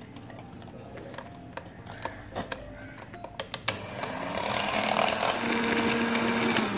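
Electric hand mixer beating eggs and powdered sugar in a glass bowl: a few sharp clicks at first, then about four seconds in the motor runs steadily and louder as the beaters whisk the mixture.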